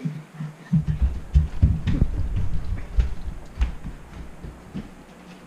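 Irregular low thuds, several a second, of footsteps and movement jolting the camera as its wearer walks quickly; they die down near the end.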